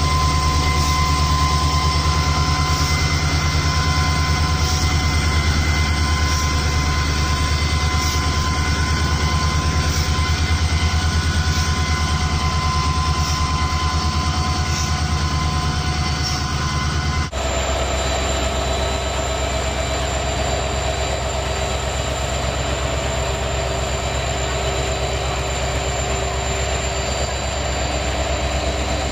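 Diesel locomotive engine sound of a WDP4 running steadily. About two-thirds of the way through it cuts off abruptly and a different steady engine sound takes over.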